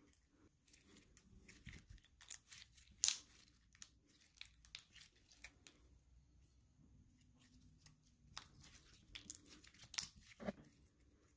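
Slime being played with by hand: irregular crackling clicks and small pops, in two busier stretches.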